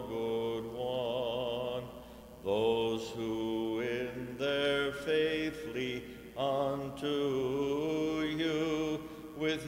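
Byzantine chant: a voice singing a slow, ornamented melody with wavering runs on held notes and brief breaths between phrases.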